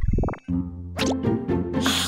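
Cartoon sound effect: a quick run of rising bloops, then background music with steady bass notes and a few sharp percussive clicks.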